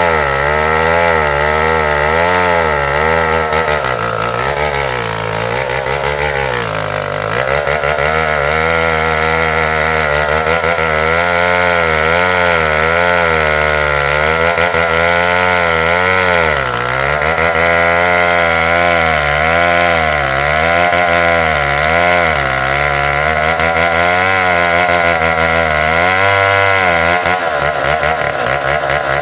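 Tecogold 700 two-stroke chainsaw running at high revs while cutting into a hardwood trunk; its engine pitch keeps sagging and recovering every second or two as the chain loads up in the wood.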